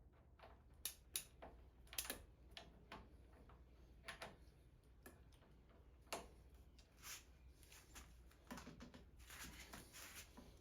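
Faint, irregular clicks and ticks of a hand wrench being worked on the handlebar riser bolts, with a quicker run of clicks near the end.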